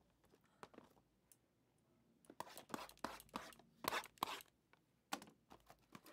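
Foil trading-card packs and cardboard card boxes being handled: scattered short crinkles and scrapes, thickest from about two seconds in.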